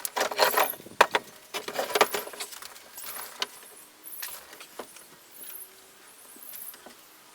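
Clinking, rattling and knocking as metal hardware and boards are handled during assembly. The clatter is busiest over the first three seconds, then thins to a few scattered knocks.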